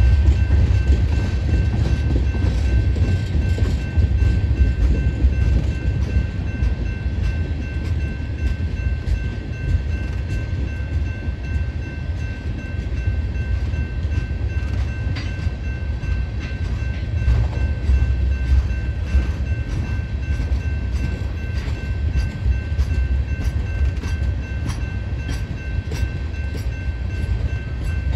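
Freight train's tank cars rolling past on jointed track, making a continuous low rumble of wheels on rail with faint clicks. A thin, steady high-pitched tone runs over it.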